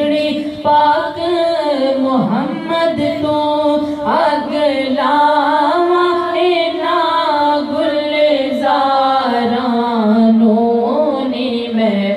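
A woman singing a Punjabi naat (devotional kalam) in long held notes that slide and waver in pitch.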